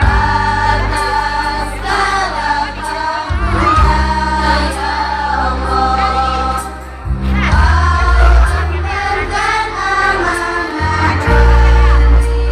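Secondary-school choir singing the Indonesian madrasah anthem in unison over an instrumental accompaniment with a steady bass line, which drops out briefly about seven seconds in.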